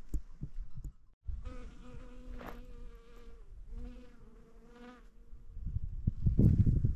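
A steady buzzing drone in four stretches of about a second each, like an insect flying close. Near the end it gives way to a louder low rumble.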